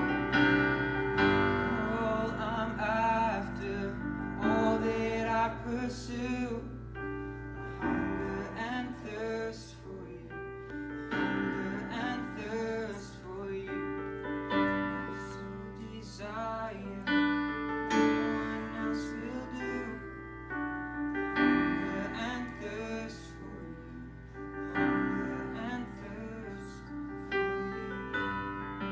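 A slow song led by piano, with a singing voice over the chords.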